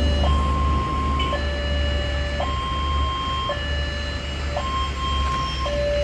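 Railway level-crossing warning siren of an unusual two-tone type, switching between a higher and a lower tone about once a second. Under it runs a low rumble that fades out near the end.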